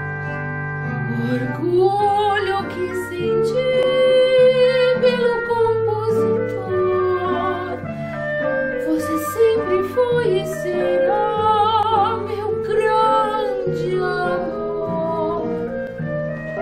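A woman singing in operatic style with wide vibrato, her line rising and falling, over sustained instrumental accompaniment.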